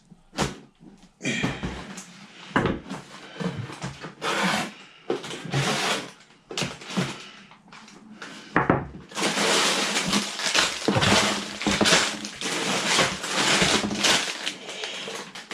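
A large cardboard box being opened and handled, with scrapes and knocks of cardboard, then dense rustling of the plastic bags of Lego parts inside from about nine seconds in.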